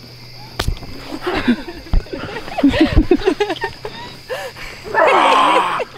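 Excited people laughing, squealing and whooping in quick short bursts, with one loud shout about five seconds in. A few dull thumps from handling, and crickets chirping steadily underneath.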